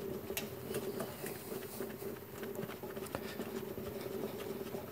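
Shop towel scrubbing Windex-wetted plasma-cut smoke haze off a powder-coated steel panel: a steady rubbing and scratching with scattered light clicks.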